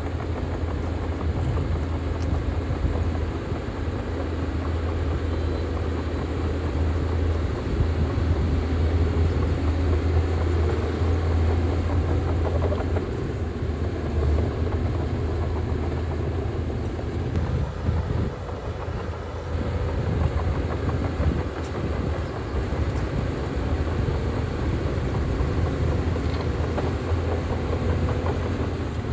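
Heavy diesel earthmoving machine running with a deep, steady engine rumble that eases off briefly about two-thirds of the way through, then picks up again.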